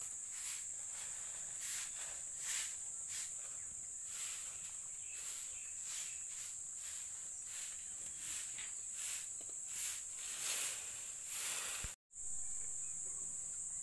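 Insects trilling steadily at a high pitch in the background, with irregular soft rustles and knocks over it.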